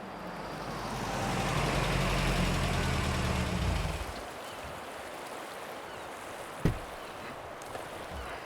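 A motor vehicle's engine and tyre noise swelling and then fading away about four seconds in, as a car drives past. A single sharp knock follows near the end.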